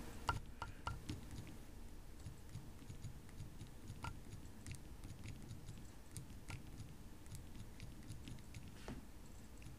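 Faint, irregular tapping of thumbs typing on the Nokia 5800 XpressMusic's resistive touchscreen keypad, a quick run of clicks at first, then scattered single taps.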